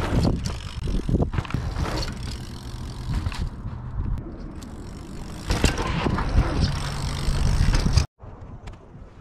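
Mountain bike being handled and ridden on loose sandy dirt jumps: tyres on dirt with knocks and rattles from the bike, over heavy low wind noise on the microphone. The sound cuts off abruptly near the end.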